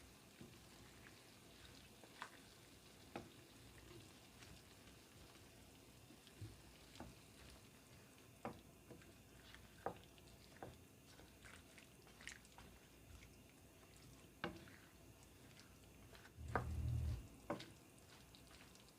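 Faint scattered ticks and pops from a pot of vegetables cooking in chicken stock, with one dull low thump near the end.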